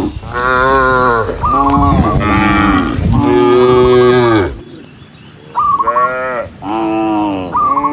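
Several cows mooing one after another, some calls overlapping. A long moo ends about four and a half seconds in, then after a short lull come three shorter moos near the end.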